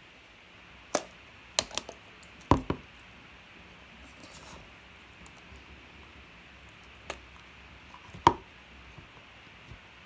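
Small plastic slime containers being handled and opened: a series of sharp plastic clicks and knocks, several in the first three seconds and two more near the end, with a soft rustle in between.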